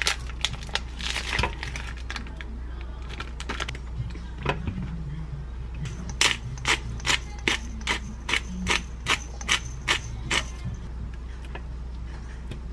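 Plastic vacuum packaging crackling as raw beef is pulled out of it. Then a whole-peppercorn grinder bottle twisted over the beef, about eleven sharp even clicks a little under half a second apart as it cracks the peppercorns.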